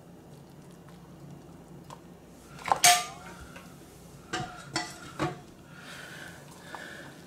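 Stainless steel kettle clanking as it is set down, a loud metallic clatter with a brief ring about three seconds in, followed by three lighter clinks.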